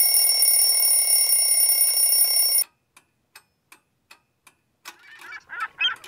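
An alarm clock rings steadily, then cuts off suddenly a little over two and a half seconds in, leaving a clock ticking five times, about three ticks a second. Near the end, high warbling chirps begin.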